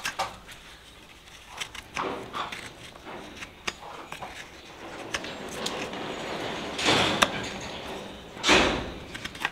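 Hoof knife paring a horse's hoof sole and frog: a run of short scraping cuts and clicks as the blade trims the horn, with two louder, longer strokes in the second half.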